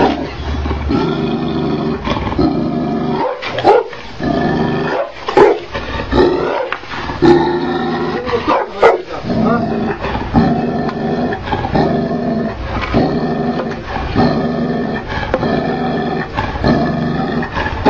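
Tibetan mastiff barking and growling, a long run of repeated barks, the loudest in the middle.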